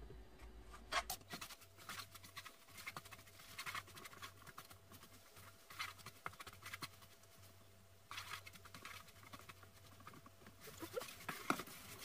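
Wooden spatula stirring dried anchovies coated in chili-paste seasoning in a frying pan: faint, irregular scraping and rustling of the dry fish against the pan.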